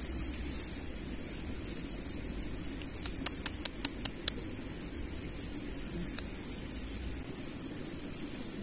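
Insects chirring steadily in a high, finely pulsing tone. About halfway through comes a quick run of about six sharp clicks.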